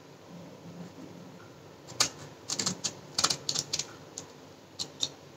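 A small knife cutting slits into a small raw brinjal held in the hand: a run of short, sharp clicks starting about two seconds in, coming in small irregular clusters.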